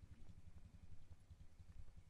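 Near silence: a faint, uneven low rumble with a few soft ticks.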